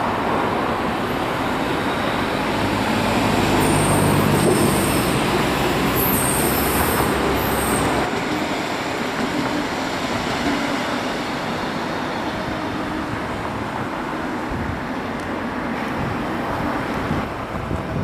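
Electric multiple unit passing close by on the tracks: a steady rumble of wheels on rail, loudest about four seconds in, with a high squeal from about four to eight seconds in.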